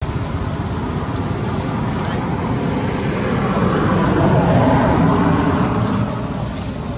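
Steady rushing outdoor noise with no clear pitch, swelling to its loudest around the middle and easing off toward the end.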